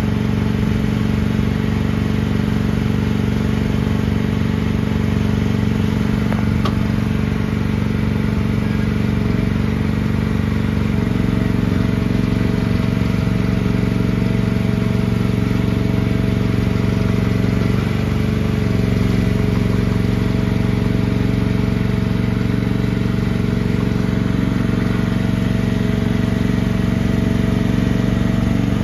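Mini excavator's 13.5 horsepower gas engine running steadily. Its note shifts slightly a few times, about a third of the way in and again past the middle.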